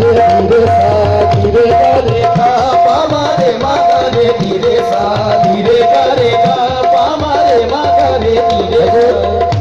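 Live qawwali music: harmonium melody over tabla drumming, with a steady repeated high note running through it.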